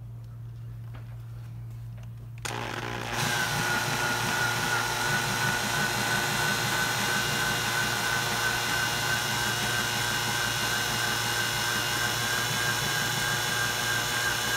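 A few faint clicks, then about two and a half seconds in a cordless drill starts up and runs steadily at very low speed, its solid carbide bit cutting into a hardened grade 8 steel bolt, with a steady high whine.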